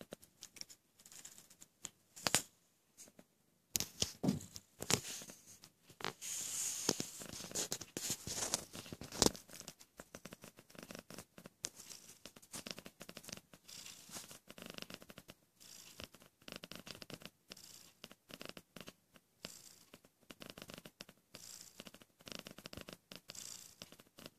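Domestic cat purring in slow swells with each breath, with a few louder clicks and a burst of rustling in the first ten seconds.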